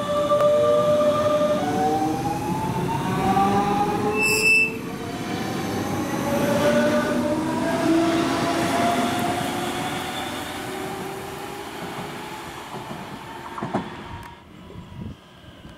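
DB Class 425 electric multiple unit passing close by, its traction drive whining in several rising tones over the rumble of wheels on rail. A short high-pitched horn toot comes about four seconds in, and the sound drops away near the end.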